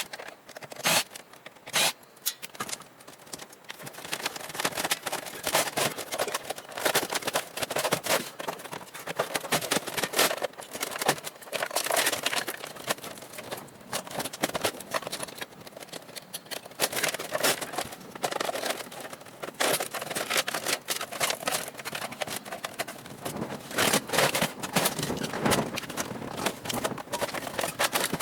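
Rapid, dense clicking, clattering and scraping of metal panels, screws and tools as a desktop computer tower is dismantled, played back sped up.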